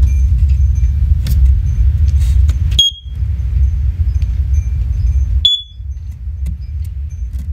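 Two short, high chirps about two and a half seconds apart from First Alert OneLink hardwired smoke alarms signalling as they link up with one another, over a steady low rumble.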